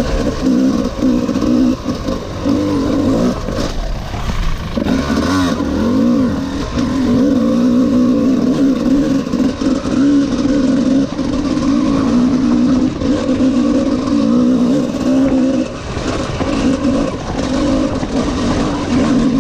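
Single-cylinder two-stroke engine of a Honda CR250R-based enduro motorcycle running at low revs, its pitch wavering with light throttle. The note thins briefly about four to five seconds in.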